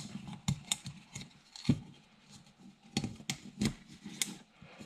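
Handling noise from a plastic oil filter housing cap as a rubber O-ring is stretched and worked onto it by hand: irregular sharp clicks and taps with a few dull knocks.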